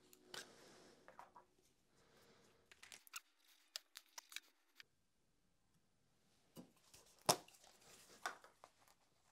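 Faint, scattered clicks and taps of a plastic super glue bottle and 3D-printed PLA parts being handled on a workbench, with one sharper knock about seven seconds in.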